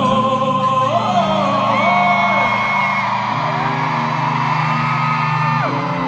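Concert crowd screaming and cheering, with long high-pitched held cries, over steady backing music in a large arena: the crowd answering the performer's call to make some noise.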